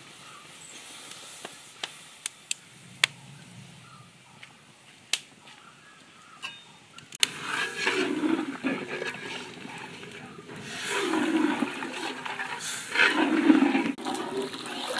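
A metal ladle stirs a thick batter of rice flour and coconut milk in a large metal basin, with wet sloshing and scraping that comes in three surges from about halfway through. Before that it is mostly quiet, with a few sharp taps.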